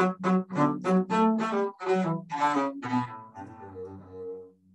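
Double bass played with the bow: a run of short, detached, articulated notes in a rhythmic, timpani-like style, then a few longer held notes from about three seconds in that fade away.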